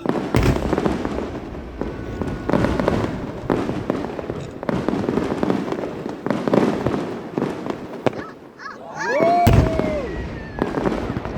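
Aerial fireworks bursting in a rapid, uneven series of bangs, the loudest coming about nine and a half seconds in.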